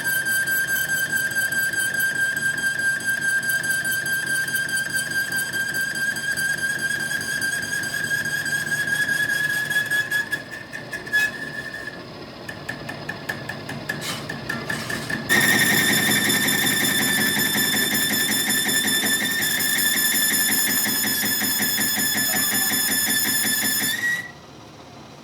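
A steady, high-pitched squeal with ringing overtones, the kind made by metal being machined. It weakens and breaks up about ten seconds in, comes back louder with a faint rapid chatter beneath it about fifteen seconds in, and cuts off suddenly near the end.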